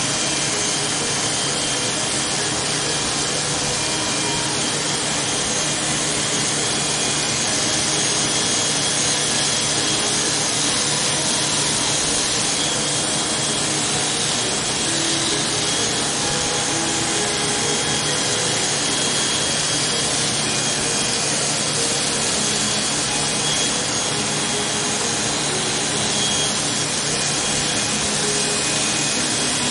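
Corded electric hair clippers buzzing steadily as they cut short hair on the back and side of the head.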